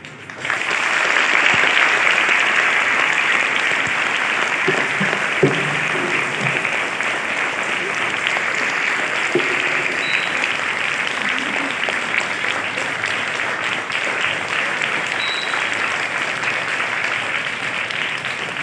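Sustained applause from a large crowd of schoolchildren clapping together, starting about half a second in. A few voices rise briefly above the clapping around five seconds in.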